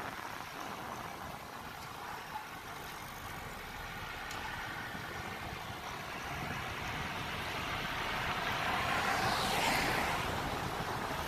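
Steady noise of city street traffic heard from a moving bicycle. About nine seconds in, a vehicle passes close, the sound swelling and then falling away.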